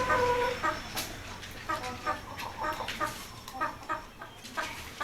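Broiler parent-stock chickens clucking: a longer drawn-out call trails off in the first half-second, then short clucks follow about twice a second.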